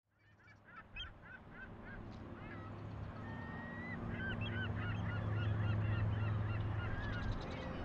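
Birds calling, many short rising and falling notes one after another, over a low steady hum. The sound fades in over the first second or two.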